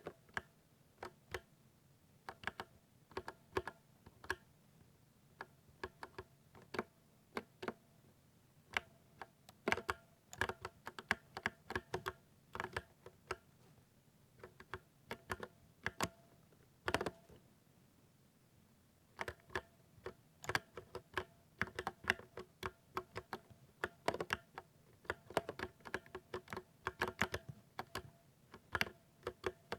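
Typing on a 60% mechanical keyboard with silver switches: quick, irregular keystroke clacks in bursts, thinning out for a few seconds about halfway through.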